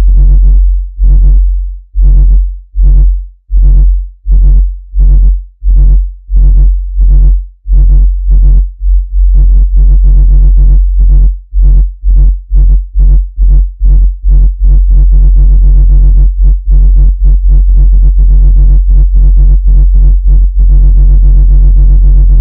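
Loud, deep speaker-cleaning tone with a stack of overtones, switching on and off in pulses that come faster and faster, from about one a second to several a second. It is meant to shake the speaker cone so that water and dust are pushed out. Right at the end it gives way to a different steady tone.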